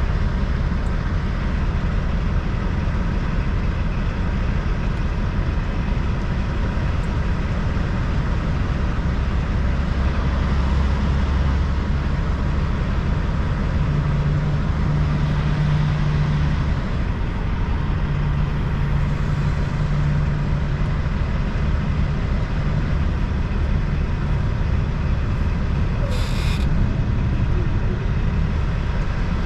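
Semi-truck's diesel engine running steadily with a low rumble, and a brief hiss near the end.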